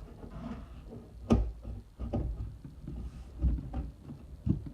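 A 4-inch sheet-metal dryer duct pipe being handled and bent into a tube, with scattered knocks and rustles of the thin metal and one sharp clack about a second in.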